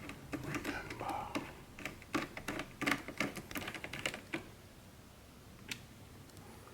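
A quick run of small, sharp clicks and taps from hands handling computer parts and a tiny M.2 drive screw, thickest between about two and four and a half seconds in.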